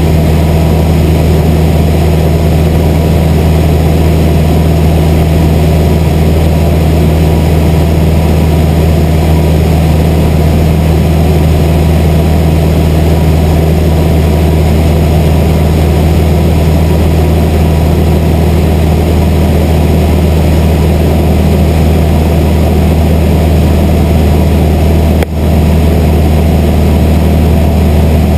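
Light single-engine aircraft's piston engine and propeller droning steadily in cruise, heard from inside the cabin, with a low, even hum. The level drops for an instant about 25 seconds in.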